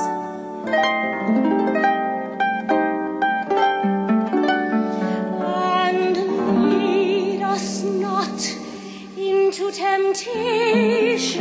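Concert harp playing rolling arpeggiated chords, its plucked notes ringing on. About halfway through, a soprano voice with wide vibrato comes in over the harp, holding long notes.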